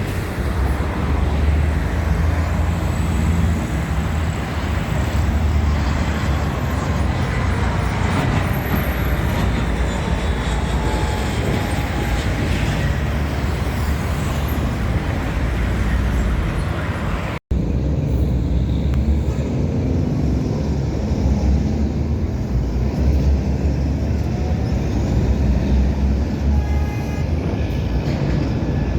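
Steady outdoor traffic noise with a heavy low rumble, cut off abruptly for a moment about halfway through.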